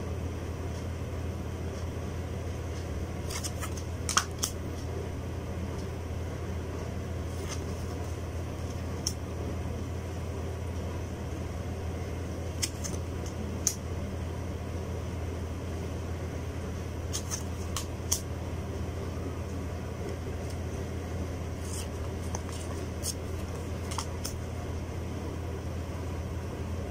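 Tarot cards being moved one at a time through a hand-held deck, giving soft, short clicks and slides every few seconds, over a steady low background hum.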